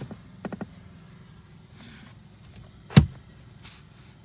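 Cabin fittings of a BMW X7 being handled: three quick clicks about half a second in, then one loud knock like a lid or door shutting about three seconds in, over a steady low hum.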